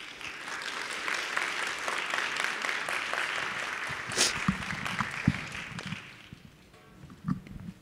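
Audience applauding, a dense patter of clapping that fades out after about six seconds. A few knocks are heard partway through.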